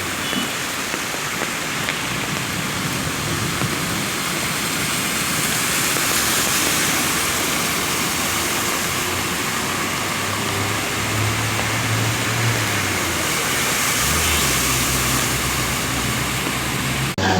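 Steady rushing noise of heavy water, rain or flood flow, with a low engine hum that comes in over the second half.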